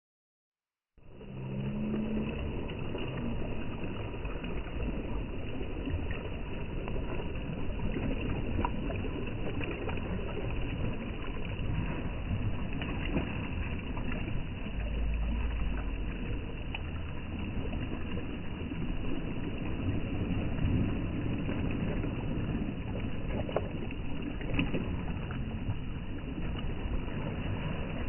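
Small sea waves washing against a rocky shore, with wind rumbling on the microphone; one stronger gust about halfway through.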